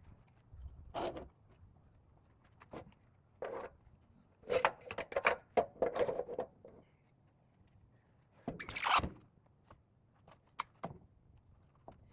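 White oak boards being handled and stood on edge: scattered wooden knocks and clunks, with a run of quick knocks about halfway and a brief louder scrape a few seconds later.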